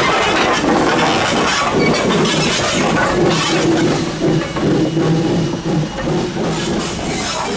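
1927 Vulcan 0-4-0T saddle tank steam locomotive working, a loud steady mix of steam and mechanical noise with repeated exhaust beats.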